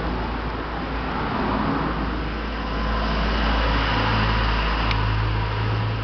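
Motor vehicle engine running outside, swelling in the middle and easing off, over a steady low hum, with one light click near the end.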